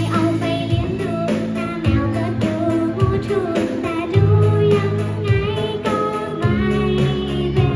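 A girl singing a Thai pop song into a microphone over pop backing music with a steady beat.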